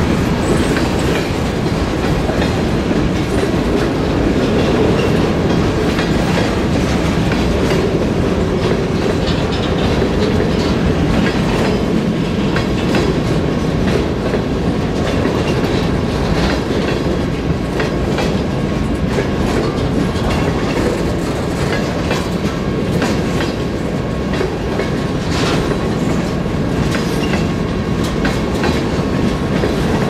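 Freight cars of a mixed freight train rolling past close by. Their steel wheels keep up a steady rumble on the rails, with scattered clicks and clacks as the wheels cross rail joints.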